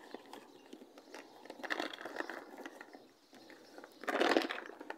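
A plastic cat-food bag crinkling and rustling as it is handled and opened, with scattered small clicks and a louder rustle about four seconds in.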